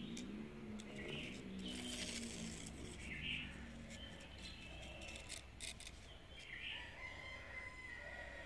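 Small birds chirping repeatedly, short high calls about once a second, with a few sharp clicks.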